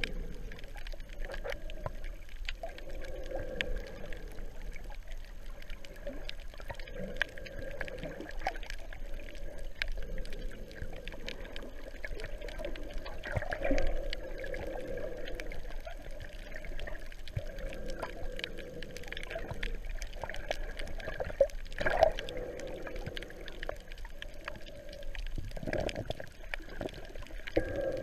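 Muffled underwater water noise picked up by a GoPro in its waterproof housing while snorkelling over a shallow reef: sloshing and gurgling that swells every few seconds, with scattered small clicks.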